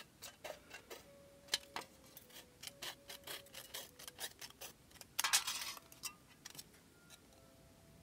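Shears snipping through thin aluminum can sheet: a run of small, irregular crisp snips and clicks, with one longer rasping cut a little after five seconds in.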